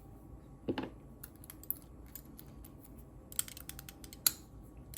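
Small sharp clicks and ticks of a lock pick working the pins of a five-pin lock, scattered and irregular: a short duller knock just under a second in, a quick run of clicks past the three-second mark, and the loudest click near the end.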